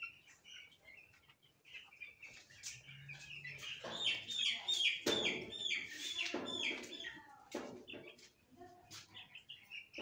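A flock of young broiler chicks peeping: many short, high peeps, some falling in pitch, overlapping all the while and growing denser and louder in the middle.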